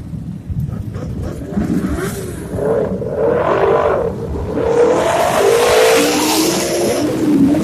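Superbike engines revving, their pitch rising and falling over and over, with a burst of exhaust hiss about five seconds in.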